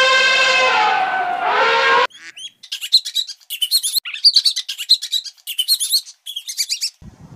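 An elephant trumpeting: one long held call that dips in pitch near its end and stops about two seconds in. Then a rat squeaking, rapid runs of very high-pitched chirps.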